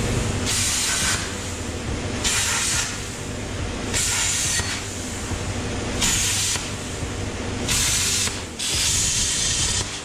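Angle grinder grinding down plug welds on a steel floor pan. The motor runs steadily, and the disc bites the metal in about six short hissing passes, one every second and a half or so.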